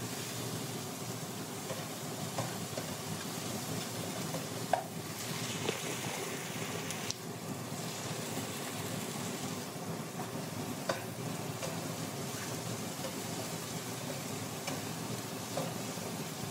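Chopped onion, tomato and green chili frying in oil in a non-stick wok: a steady sizzle, with a spatula stirring through it and a few light knocks against the pan.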